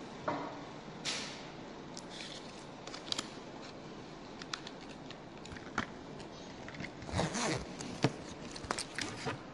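Faint steady hiss with scattered sharp clicks and short scraping, crackling noises, the busiest and loudest stretch about seven to eight seconds in.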